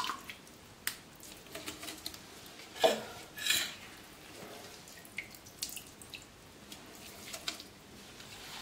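Handfuls of soaked rice grits being squeezed and dropped by hand, water dripping and splashing back into a steel vessel, with a few light knocks of steel pots; the strongest sounds come a little under 3 s and about 3.5 s in.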